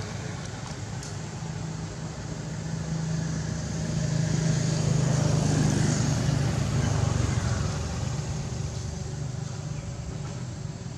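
A motor vehicle's engine humming as it passes, growing louder to a peak about halfway through and then fading.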